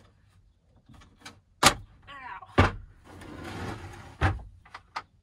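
Hard plastic clicks and knocks from van cup-holder compartments being pried open and handled, about five sharp ones, with a second or so of rummaging rattle near the middle.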